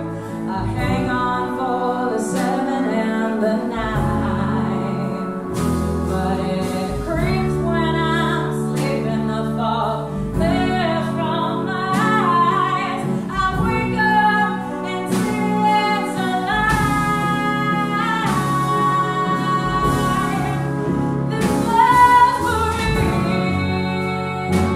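A small live band playing a song: flute and alto flute, clarinet and bass clarinet, piano, upright bass and drums, with a female singer's wordless vocal line over the ensemble.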